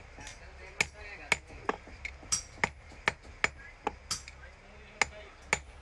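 Hand hammer striking a metal padlock body: about a dozen sharp metallic strikes at an irregular pace, roughly two a second.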